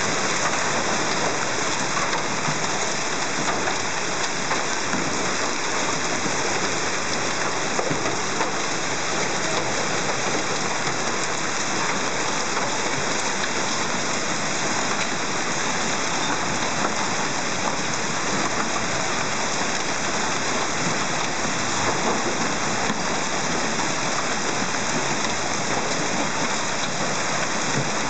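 Heavy hailstorm: hailstones and rain falling on the street and parked cars in a steady, dense patter of countless small hits.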